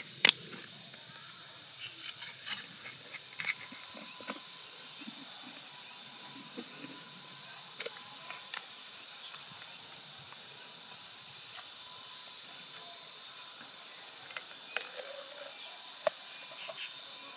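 A knife knocking sharply on the edge of a large freshwater mussel shell at the very start, then a steady high hiss with scattered faint clicks and knocks of knife and shell as the mussel is worked open.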